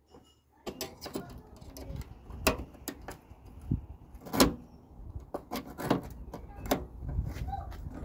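Butter knife prying at the clips of a car door's outer window weather strip: irregular sharp clicks and scrapes of metal on metal, with louder knocks about two and a half, four and a half and six seconds in.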